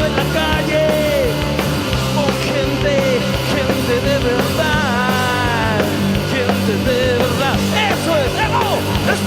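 Punk-style rock band playing between sung verses: a lead line bending and wavering in pitch over a steady bass and drums.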